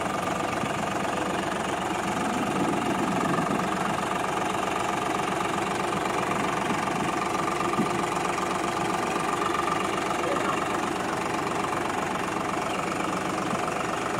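Diesel tractor engine running steadily with an even, rapid firing beat.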